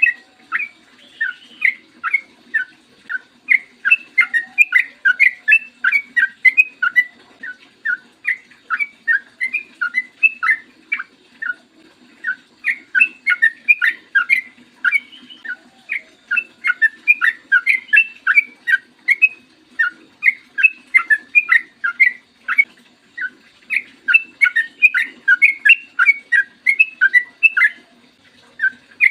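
Yellow-vented bulbul singing long, fast runs of short bubbly notes, with only brief pauses between phrases.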